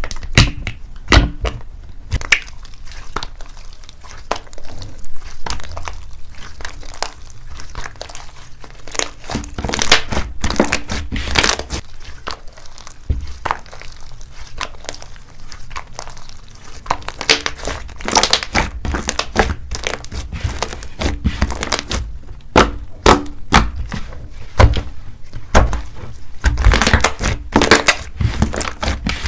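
Thick white fluffy slime being squeezed, stretched and pressed by hand, giving irregular runs of sticky crackling and clicking pops.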